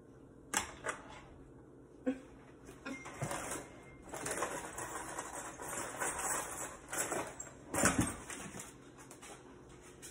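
Spatula clicking and scraping against a skillet and plate as chicken pot pie is scooped out, with a sharper knock about eight seconds in.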